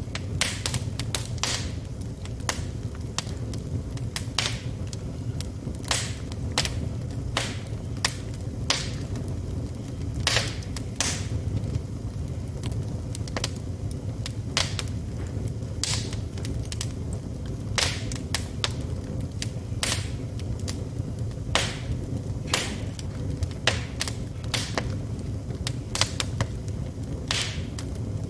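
Wood fire burning in a fireplace: a steady low rumble of the flames with frequent, irregular crackles and pops from the burning wood.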